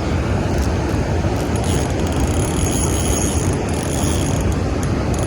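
Fishing reel's drag clicking rapidly as a hooked catfish pulls line off the spool.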